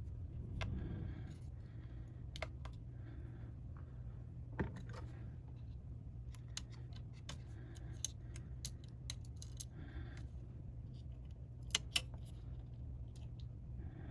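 Scattered small metallic clicks and clinks of hand tools and tiny screws being handled while a laptop is taken apart, with a few sharper clicks, over a steady low hum.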